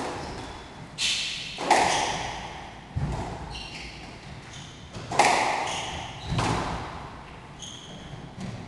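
Squash rally: the ball is struck by racket and hits the walls every second or two, each impact ringing on in the court, with short high shoe squeaks on the wooden floor between shots.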